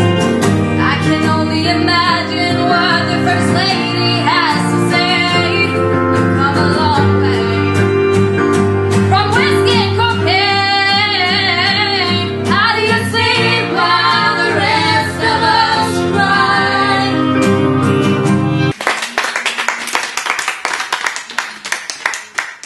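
Girls' voices singing a song together, with acoustic guitar accompaniment. About nineteen seconds in, the music cuts off and a small group applauds.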